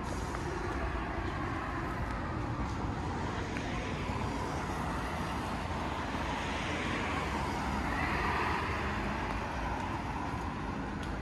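Street traffic noise with a vehicle passing by, its sound swelling to its loudest about two-thirds of the way through and then fading, over a steady low rumble.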